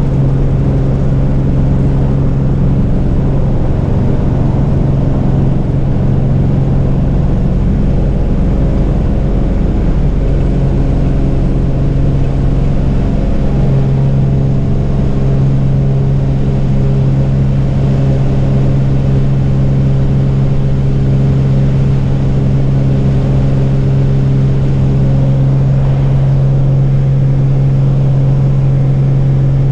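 Single-engine piston propeller plane at takeoff power, heard from inside the cabin, a loud steady drone. A rough rumble over roughly the first dozen seconds comes from the wheels rolling on the grass strip, then the engine note runs steady as the plane climbs.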